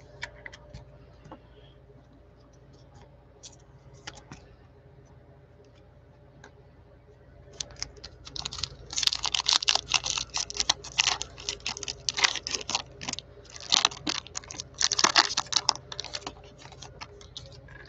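Plastic wrapper of a trading-card cello pack crinkling and crackling as gloved hands tear it open, a dense run of irregular crackles from about halfway through until just before the end. Before that there are only a few faint clicks of cards being handled.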